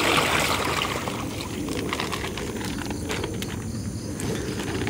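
Water pouring out of a plastic bag into a fish tank, fading out within the first second, then a steady background hiss.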